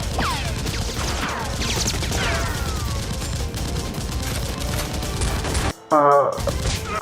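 Gunfire sound effects: a dense, rapid volley of shots with falling whizzing ricochets over a steady low rumble. Near the end the firing cuts off suddenly and a loud wavering pitched sound comes twice.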